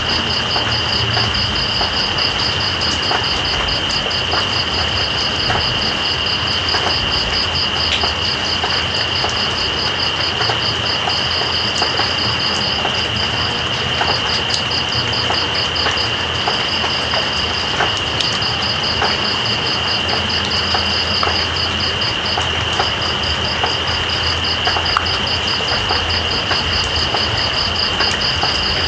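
Steady rain with night insects calling: one high, unbroken trill and a second, higher chirp pulsing rapidly and evenly, pausing briefly now and then.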